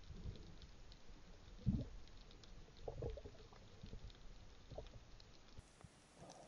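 Underwater audio from an action camera: a few muffled low thumps and knocks from handling the speargun with a speared cuttlefish on its shaft, the loudest a little under two seconds in, over faint scattered clicking.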